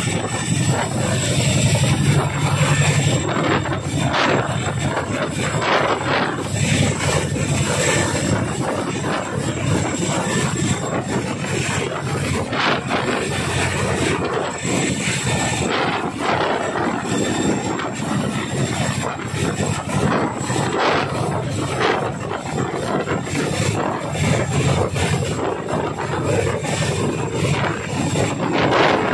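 Boeing CH-47 Chinook tandem-rotor helicopter hovering low at close range: its twin turboshaft engines and two rotors run loud and steady, with the rapid beat of the blades and a thin high whine.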